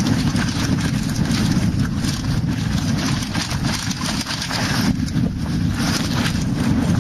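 Wind buffeting a helmet-mounted camera's microphone on a fast mountain-bike descent, with many quick rattles and knocks from the bike over rough dirt trail.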